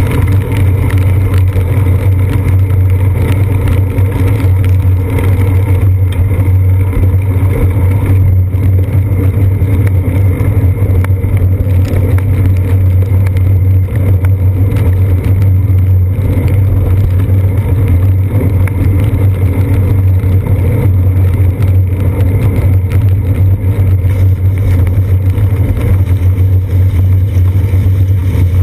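Riding noise of a bicycle on wet pavement, picked up through a seat-post-mounted GoPro camera: a loud, steady low drone of road vibration and wind, with no break or change.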